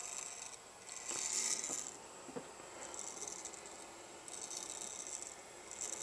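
Boring bar spindle turned by hand in neutral, giving a dry, high rattle in about five short spells with pauses between, as it swings a dial test indicator around the cylinder bore to center the bar.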